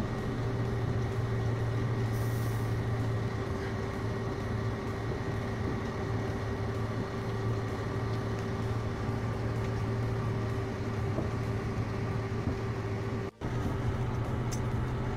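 Truck engine running steadily at low speed, heard from inside the cab, a constant drone with a faint high whine over it. The sound cuts out for a split second near the end.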